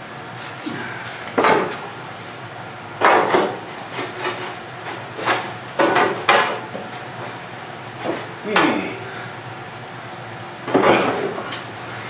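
Metal clanks and knocks as a Wheel Horse lawn tractor's painted sheet-metal rear fender is handled and fitted into place: a string of about eight separate, irregularly spaced knocks.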